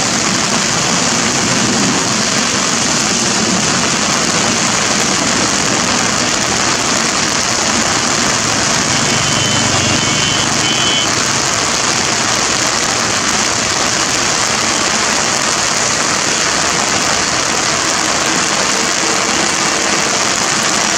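Boeing 777 jet engines running at taxi power as the airliner taxis past, a steady rushing hiss mixed with heavy rain. A brief high whine comes in about halfway, as the engine passes closest.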